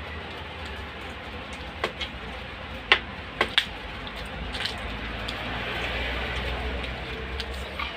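A man eating fish and rice with his hands: a few sharp smacks and clicks of chewing and handling food, the loudest about three seconds in, over a steady low hum.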